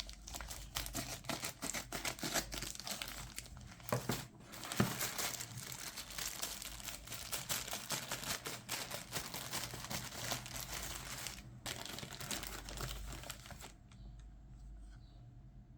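Packaging being handled and unwrapped: a continuous crinkling and rustling with some tearing, which stops about fourteen seconds in.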